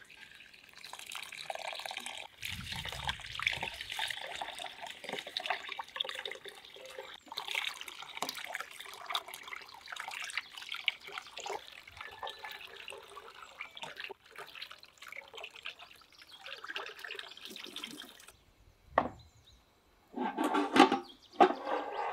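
Water running from a brass tap into an enamel basin of rice, with splashing as hands rub and swish the grains to wash them; it cuts off suddenly about eighteen seconds in. A thump follows, then a short louder sound just before the end.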